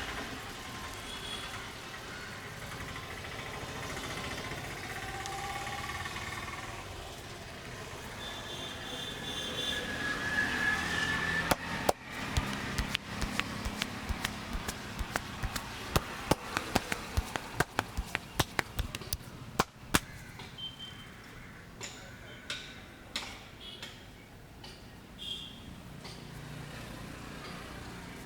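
Sharp slaps and snaps of hands working a head massage: a quick, irregular run of several a second for about ten seconds from the middle, then scattered strokes near the end, over steady street traffic noise.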